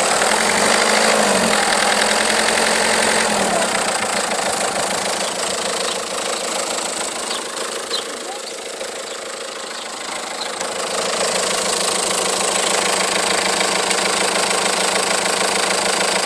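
Renault Megane II 1.5 dCi four-cylinder turbodiesel running with a metallic knock from inside the engine. It quietens for a few seconds mid-way, then comes back up.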